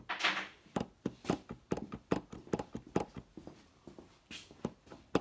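Clutch plates of a John Deere 310D reverser forward clutch pack clicking against each other and the snap ring as they are pushed back and forth by hand, checking the pack's remaining play. The clicks are light and irregular, two or three a second.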